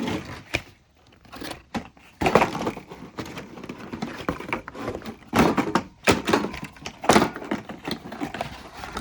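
Metal mounting plates and brackets being handled and lifted out of a case and its packaging: irregular knocks, clatter and rustling.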